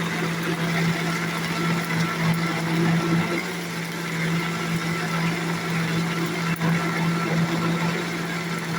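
Vitamix blender running steadily at speed, its motor giving a constant hum as it grinds onion and pepper.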